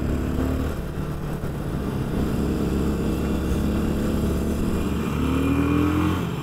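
Motorcycle engine running under way. Its pitch climbs and it gets louder about five seconds in, then it falls away near the end.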